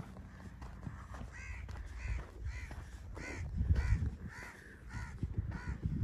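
Crows cawing: a run of short, harsh caws, about two a second, over a low rumble.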